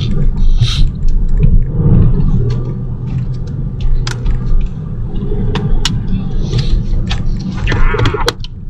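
Steady low road and engine rumble inside a moving car's cabin, with scattered light clicks and knocks.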